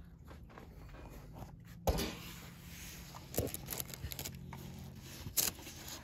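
Close handling noise: a sharp knock about two seconds in, then a few soft clicks and taps, over a faint steady low hum.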